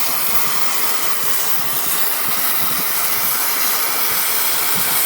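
A steady, loud hiss that holds even throughout with no breaks or rhythm.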